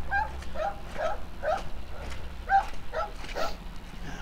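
A series of short, pitched animal calls, two or three a second, with a brief pause around the middle.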